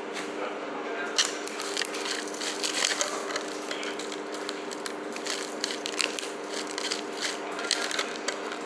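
A fork stirring coarse cassava flour (farinha de puba) into rice and meat in an aluminium foil takeaway tray: irregular scraping, crinkling clicks of the utensil against the foil and the gritty flour.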